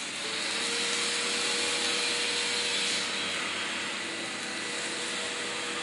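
Flux-cored arc welding on mild steel at 175 amps with an on-torch fume extraction gun drawing air: a steady hissing arc mixed with the rush of the extraction suction, and a faint steady hum.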